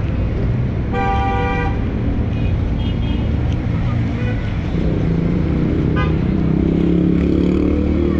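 Busy city street traffic: steady engine and road noise, with a car horn sounding once for just under a second, about a second in.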